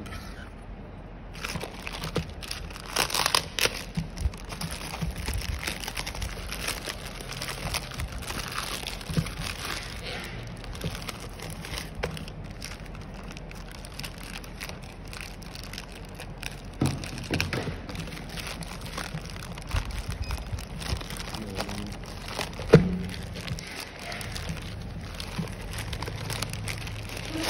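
Plastic courier mailer bag crinkling and rustling as it is handled and torn open, with scattered small clicks and one sharp click in the later part.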